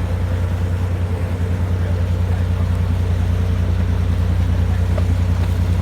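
Diesel engine of a large river ship passing close by: a deep, fast, even throb that grows steadily louder.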